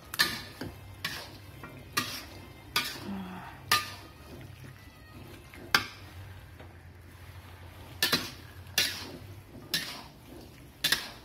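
Metal spatula scraping and clanking against a wok while stir-frying squid in thick sauce: a dozen or so sharp, irregular strokes, some close together and some a second or two apart.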